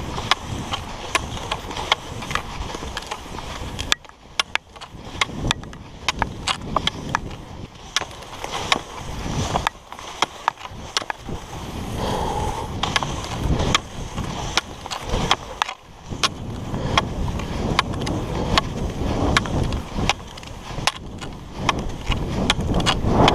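Cross-country skis sliding and scraping over packed snow in a steady uneven hiss, with frequent sharp clicks from ski pole plants.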